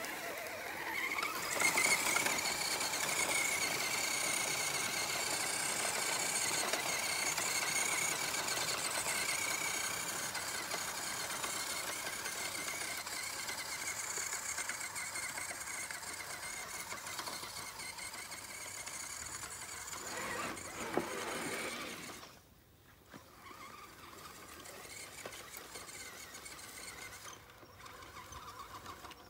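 Electric motor of an RC scale rock crawler whining: it rises in pitch as it spins up, then holds a steady high whine that weakens and drops away about two-thirds of the way through.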